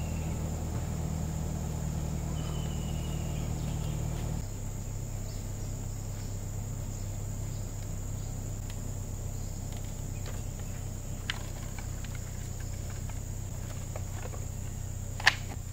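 Steady insect chirring, heard as a constant high drone, over a low hum that drops and changes about four seconds in. Near the end come a few light clacks and one sharp knock as the wooden slatted camp table is folded up.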